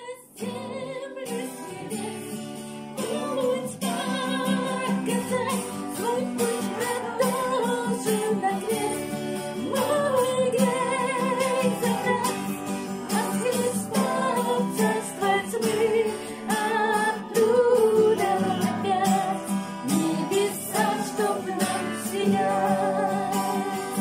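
A Christian song: a singing voice with vibrato over guitar accompaniment.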